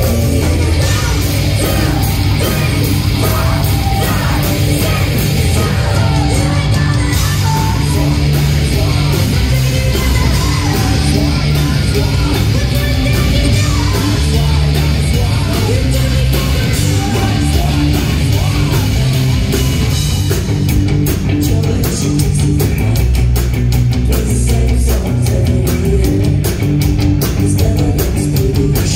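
Live rock band playing loud: electric guitars, bass guitar and drums, with a woman singing lead. From about two-thirds of the way in, the cymbals and drums get busier and thicker.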